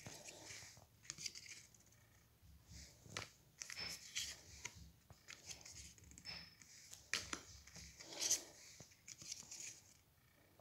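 Trading cards being handled one by one, the stiff card stock sliding and flicking against itself in a faint, irregular string of short rustles and clicks.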